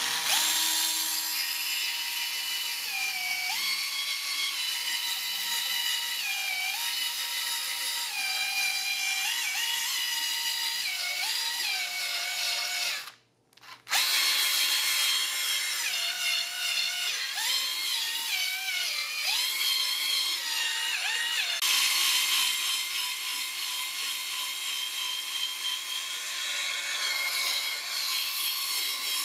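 Electric drill spinning a foam polishing pad, buffing polishing compound into a glossy plastic laptop lid. The motor's whine repeatedly dips in pitch and rises back as the speed and pressure change, and it cuts out for a moment about halfway before starting again.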